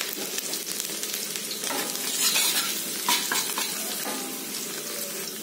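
Chopped garlic sizzling in hot oil in a stainless steel wok, with a metal spatula scraping and clinking against the pan as it is stirred, mostly around the middle.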